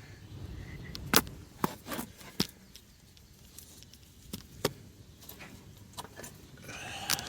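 A hammer striking the metal steering linkage under a car in six or seven sharp, irregular blows, the loudest about a second in. The blows are meant to knock a joint of the idler arm and tie rod loose.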